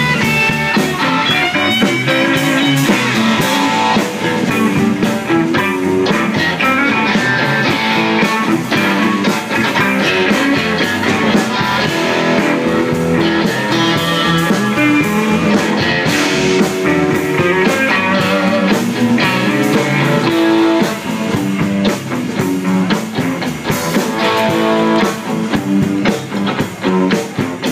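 Electric blues band playing an instrumental break between verses, guitar out front.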